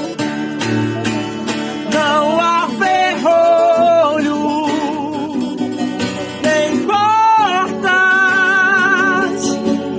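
Acoustic guitar accompanying a hymn, with a voice singing long, wavering held notes.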